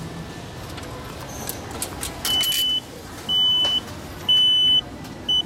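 Railway ticket vending machine sounding a string of high beeps, each about half a second long and about a second apart, prompting the customer to take the issued ticket from the slot. A brief clatter comes just before the first beep, as the ticket is dispensed.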